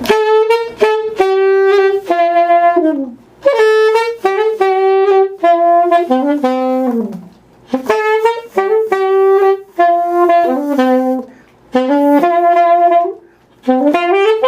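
Saxophone playing short melodic phrases, several of them ending in a 'drop': a long downward glissando that fades out as it falls.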